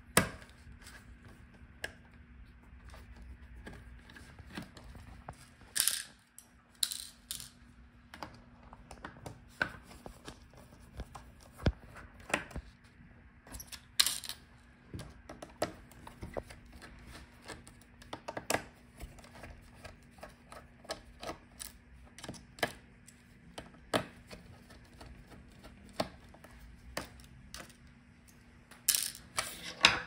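Irregular small clicks and taps of a screwdriver working the metal hinge screws of a laptop and of small parts being handled and set down, with a few louder clacks now and then.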